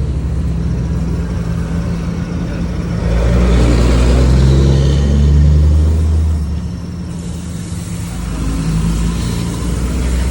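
An engine running steadily, revving up and getting louder for about three seconds in the middle before dropping back.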